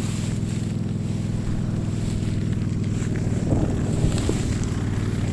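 Brush cutter engine running steadily under load, with a couple of brief louder knocks about three and a half to four seconds in.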